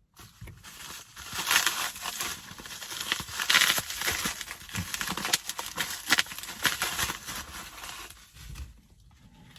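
Plastic packaging crinkling and rustling as it is handled, with many small clicks and ticks, dying away near the end.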